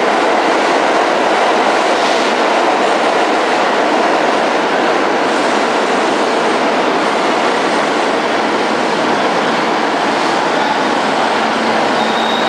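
New York City Subway R46 train pulling into the station and slowing to a stop: loud, steady running noise of its wheels on the rails.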